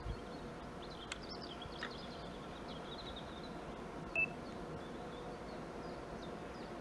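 Faint, steady rumble of a distant diesel freight locomotive approaching, with small birds chirping over it; one short, clear high chirp stands out about four seconds in.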